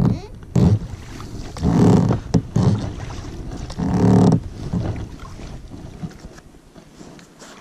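Oars working in the oarlocks of a small inflatable PVC rowing boat: a loud stroke with a creak and splash about every two seconds, dying away near the end.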